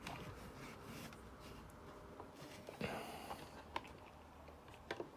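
Faint handling of a plastic action figure: a few small clicks and taps of hard plastic parts as accessory guns are fitted into the toy horse.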